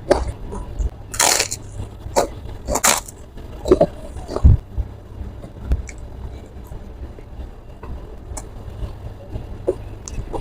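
A person eating jengkol beans with chilli sambal up close, biting and chewing with irregular crunches, smacks and small clicks. The loudest crunches come about a second in and near three seconds in.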